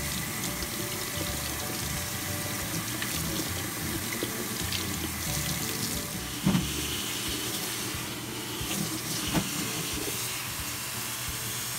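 Kitchen faucet running steadily as a red cabbage is rinsed under the stream in a stainless steel sink and pot, water splashing off the leaves. Two short knocks, the louder about halfway through.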